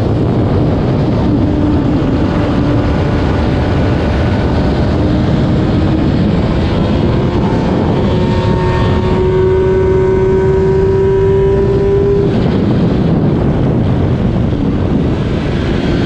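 Stock 2008 Kawasaki ZX-10R's inline-four engine running hard on track, recorded onboard, its note climbing slowly for a few seconds and then changing abruptly about twelve seconds in, under heavy wind noise on the microphone.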